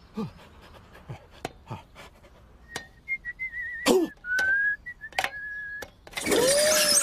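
Someone whistling a thin, wavering tune for about three seconds, with a few light knocks around it, then a loud yell near the end.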